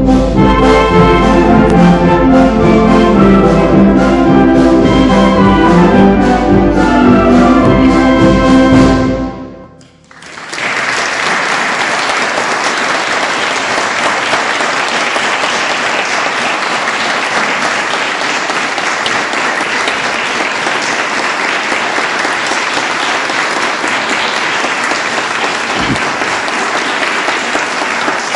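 Ensemble music led by brass plays to the end of a piece, stopping about nine seconds in; after a brief pause an audience applauds steadily for the rest of the time.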